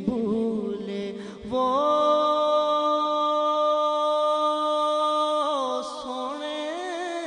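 Male voice singing a devotional Urdu kalaam (naat). After short ornamented turns, he holds one long steady note for about four seconds, then breaks back into melismatic ornaments near the end.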